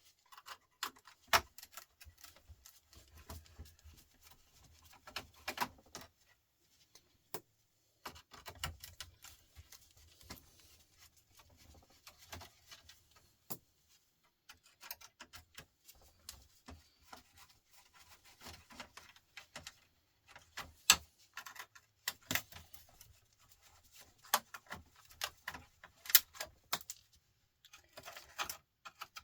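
Phillips screwdriver taking screws out of a TV's circuit board and metal chassis: scattered small clicks, ticks and scrapes of metal and plastic, with a few sharper knocks as parts are handled.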